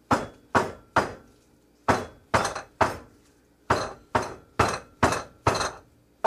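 A wooden soap loaf mould full of freshly poured soap batter is knocked down hard on a countertop again and again to bring up trapped air bubbles. The knocks are sharp and come in quick runs of three or four, about two a second.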